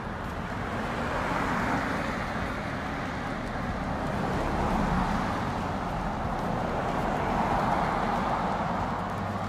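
Road traffic going past: a rush of tyre and engine noise that swells and fades two or three times as cars pass.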